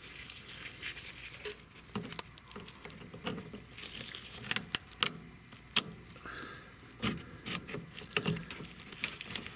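Light metallic clicks, clinks and rattles of hand tools on metal fittings, with a few sharper taps between about four and six seconds in.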